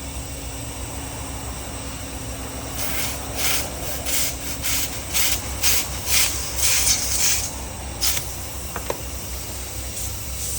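Tyre puncture repair work: a run of about a dozen short, sharp, noisy strokes, roughly two a second, over a steady low hum.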